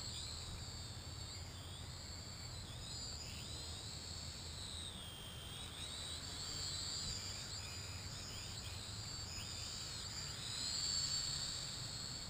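Propel Cloud Rider quadcopter's motors and propellers whining high overhead, the pitch gliding up and down as it manoeuvres, dipping about five seconds in and swelling louder near the end.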